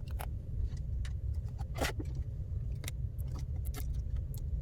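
Scattered light clicks and taps of small tools and tablet parts being handled, over a steady low hum.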